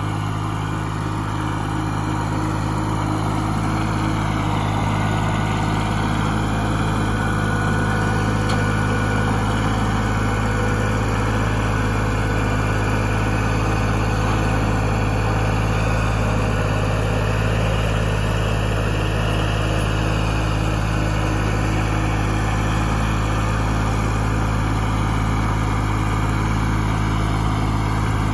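Compact tractor engine running steadily under load as it drags a wooden chicken coop on a chain; it builds up slightly over the first few seconds.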